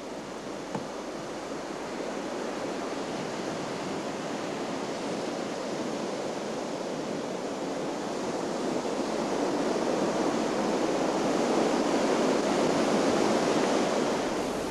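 Sea surf washing over a rocky shoreline, a steady rush that slowly swells to its loudest about two-thirds of the way through, then eases off near the end.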